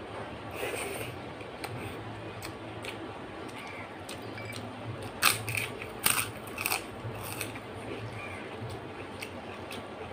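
Close-up eating sounds of a person eating rice and dal by hand: wet mouth clicks and chewing smacks, a few louder ones about five to seven seconds in, over a steady low hum.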